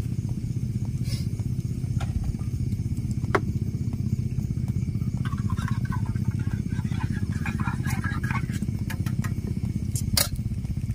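A small engine running steadily with a low, even drone, with a few scattered clicks and light knocks on top.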